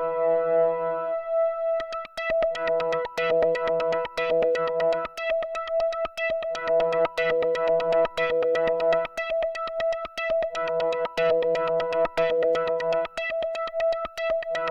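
Arturia Modular V3 software synthesizer playing a patch: a steady held tone over lower notes that switch on and off in blocks of about a second. About two seconds in, a fast stream of short clicks joins them.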